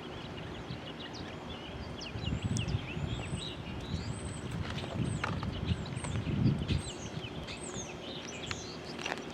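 A flock of small birds chirping and twittering in many short, quick notes. Under them runs a low, uneven rumbling noise on the microphone, heaviest in the middle.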